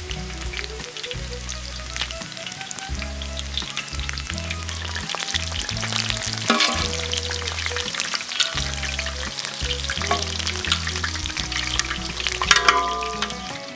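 Mutton tails sizzling in hot oil on a plough-disc pan, under background music with a stepped bass line and melody. Near the end a metal spatula scrapes and clinks on the pan.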